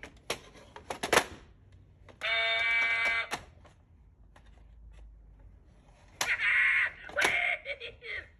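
Operation board game's electric buzzer sounding twice, each buzz about a second long, after a few sharp clicks and taps on the board.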